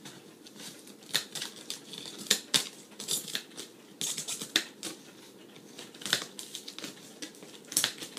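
Hands picking at and peeling packing tape on a cardboard box: a string of irregular scratchy crackles and short tearing sounds.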